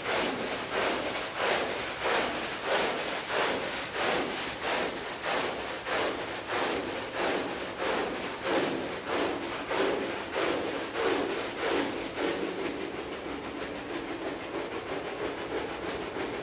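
A stiff brush scrubbing a rug in regular back-and-forth strokes, just under two a second. After about twelve seconds the strokes turn fainter and quicker, and a steady hum comes in beneath them.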